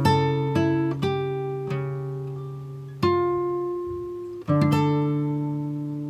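Background music of slow, plucked acoustic guitar. Chords and single notes are struck every second or so and left to ring and fade, with a longer pause before fresh notes about three and four and a half seconds in.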